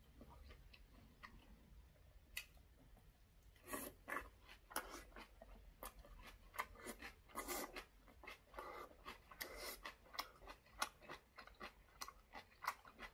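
A person chewing a large mouthful of rice wrapped in aged kimchi: soft, irregular wet clicks and smacks, sparse at first and coming thicker and louder from about four seconds in.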